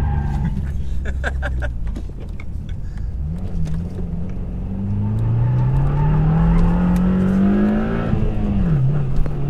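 2015 Subaru WRX's turbocharged flat-four engine through an Invidia N1 cat-back exhaust, driven hard: the revs climb steadily for about three seconds, drop sharply at a gear change near the end, then hold steady. A brief rattle of clicks comes about a second in.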